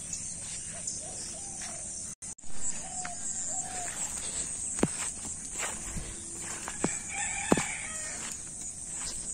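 Rooster crowing over a steady, high-pitched insect trill, with a few sharp clicks.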